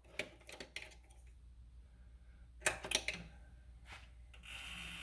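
Metal lathe being readied to run: a few light clicks and knocks at its controls, loudest about three seconds in. A faint steady whir starts near the end as the machine is switched on.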